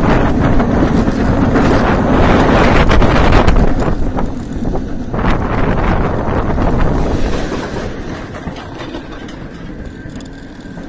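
Bolliger & Mabillard floorless coaster train running at speed through its last inversion, heard from the back row as a loud rush of wind on the microphone over the rumble and rattle of the train on the steel track. From about seven seconds in the sound dies away steadily as the train slows.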